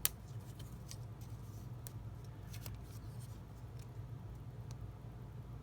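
Faint small clicks and ticks of glue dots being peeled from their roll and pressed onto a clear plastic window sheet, with one sharper click at the start, over a steady low hum.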